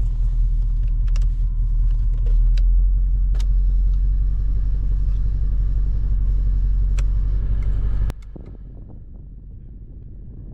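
BMW E34 540i's V8 engine running with a steady low rumble and a few light clicks over it, then cutting out abruptly about eight seconds in, leaving a quieter steady rumble.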